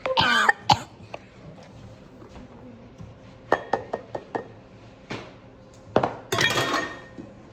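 Glassware and dishes clinking: sharp clinks with brief ringing, a cluster near the start, several more around the middle, and another ringing clink near the end.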